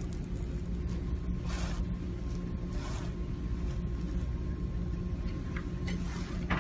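Steady low electrical hum, with a few brief soft rustles, about three of them, as a patient settles face-up on a treatment table.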